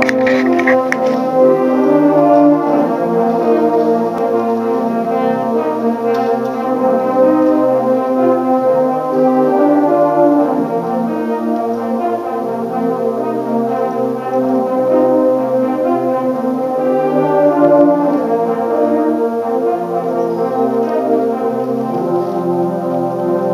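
Large brass ensemble, baritone horns among the horns, playing a slow piece in long held chords that change every few seconds.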